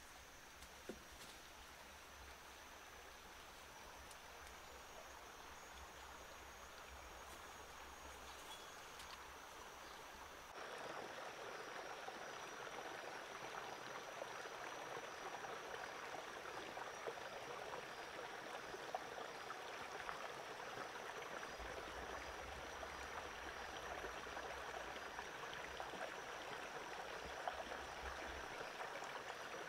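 Forest ambience: a steady rushing noise with a faint, thin, high insect whine above it. The rushing steps up louder about ten seconds in.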